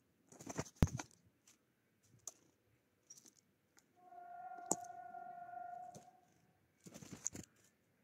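Eurasian jay pecking and moving on a wooden feeder tray: a cluster of sharp taps and knocks in the first second and another around seven seconds in. In between, a steady pitched tone lasts about two seconds.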